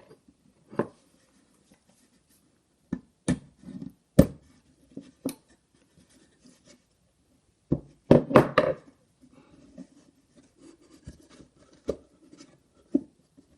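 Hammer tapping a nail into the wooden side of a bluebird nest box, the pivot nail for its hinged door. Scattered single knocks, then a quick run of several harder strikes about eight seconds in.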